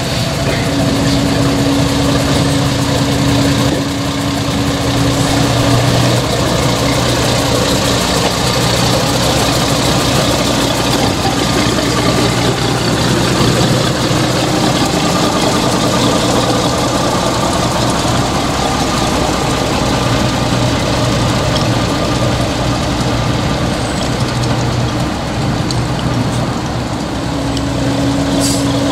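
Small narrow-gauge diesel locomotive's engine running steadily with a low, even hum.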